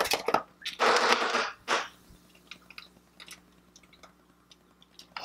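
Hands squeezing and rubbing a latex balloon with a ping pong ball inside: two short hissy bursts about a second in, then faint small clicks and rubbing.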